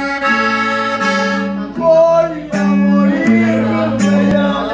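Live band music: an electric guitar playing along with held, sustained chord notes over a bass line that changes about once a second.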